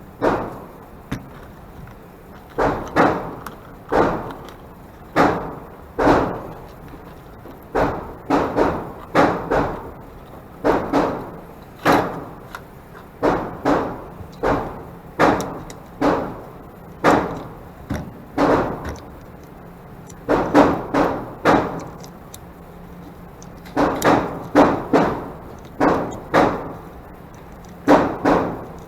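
Glock 44 .22 LR pistol being fired repeatedly: sharp shots about one a second, often in quick pairs or short strings, each with a brief ringing decay.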